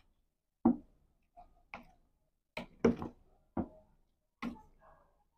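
Metal spoon knocking and clinking against a glass bowl while stirring yogurt with chopped vegetables into raita. About nine irregular knocks, a few with a brief ring.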